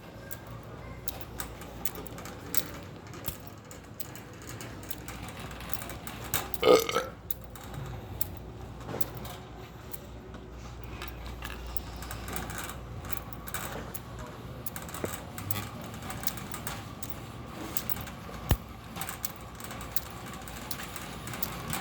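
One loud burp, under a second long, about a third of the way in, over a steady low background hum with scattered small clicks and knocks. A single sharp click comes later.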